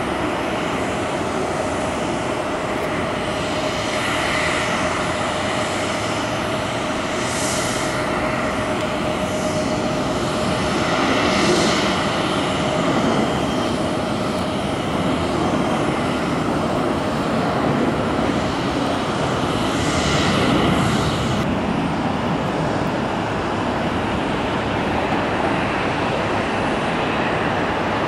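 Jet engine noise from a UPS wide-body twinjet freighter climbing out on takeoff power: a continuous rumble with a faint steady whine in the first half and a few brief swells of hiss.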